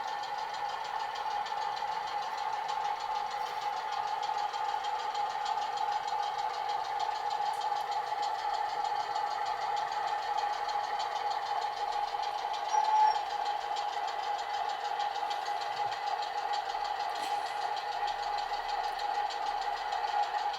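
Diesel engine sound played by the sound decoder of an OO gauge model diesel locomotive through its small onboard speaker: a steady running engine note with a fast, even beat, briefly louder a little past halfway.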